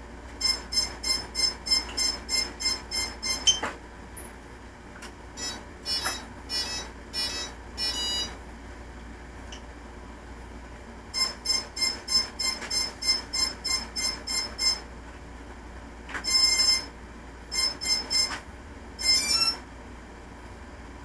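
Hobby King Nova quadcopter giving electronic beep signals: a fast train of short high beeps, a slower group, another fast train and a few longer beeps, ending in a quick rising run of tones, the kind of tone codes it gives while being armed.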